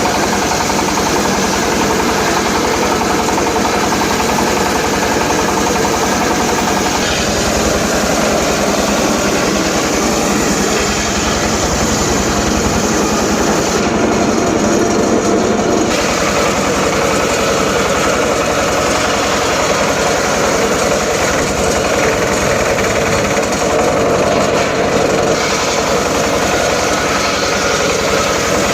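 Homemade circular saw rig running steadily while ripping teak, its sound shifting a few times as the blade works through the cut.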